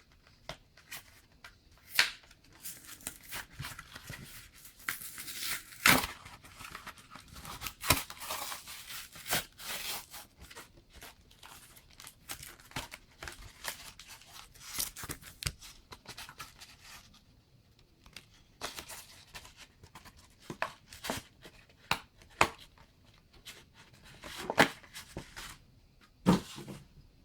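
A Pokémon card blister pack, a plastic bubble on a cardboard backing, being torn open by hand: tearing, crinkling plastic and a string of sharp snaps and clicks.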